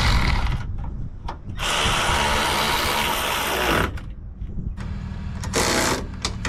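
Cordless electric ratchet whirring in three runs, a short one at the start, a long one of about two seconds and a short one near the end, as it runs a nylon lock nut down on a sway bar end link to compress the bushings.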